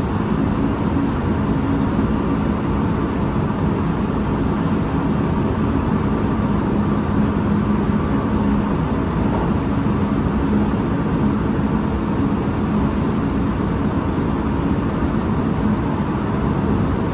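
JR West 223 series electric train running at speed, heard from on board: a steady rumble of wheels on rail with a low hum.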